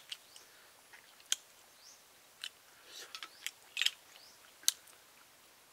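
A person eating spicy cooked snails: irregular sharp smacks and clicks of chewing and biting, about a dozen, spaced unevenly.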